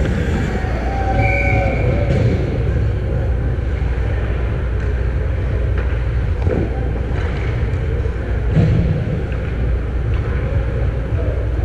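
Ice hockey game sound picked up by a net-mounted action camera: a steady low rumble of the rink, with skates on the ice, a sharp stick or puck knock about six and a half seconds in, and a short shout near the start.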